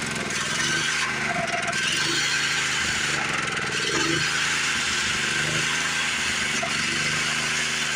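Small petrol engine of a homemade sawmill running steadily under load as the blade cuts through a log.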